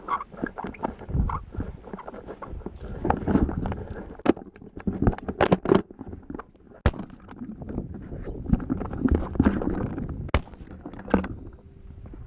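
Footsteps crunching over dry grass and loose rock on a steep slope, irregular and uneven, with sharp clicks and knocks from the carried shotgun and its mounted camera.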